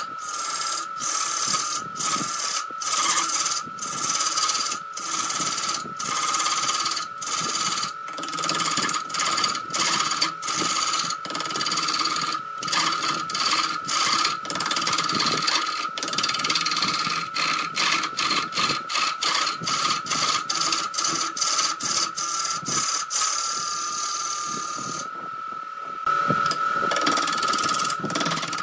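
Electric wood lathe running with a hand-held gouge cutting into a spinning wood blank: a steady whine under repeated rasping cuts that come faster in the second half, with a short pause near the end as the tool comes off the wood.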